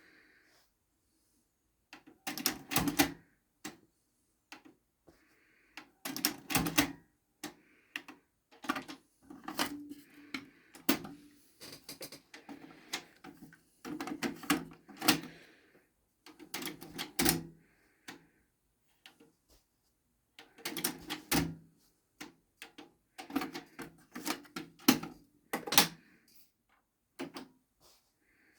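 Technics RS-TR333 double cassette deck being operated by hand: its controls and cassette doors click and clunk in clusters every second or two.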